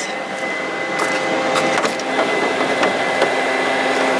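HP large-format inkjet plotter powered up and running: a steady whir of fans with a constant hum and whine, and a few faint clicks. It has halted on a print head path error, with the print head carriage jammed.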